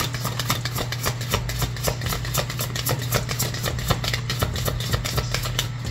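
A deck of oracle cards shuffled by hand: a rapid, uneven run of sharp card clicks, several a second, over a steady low hum.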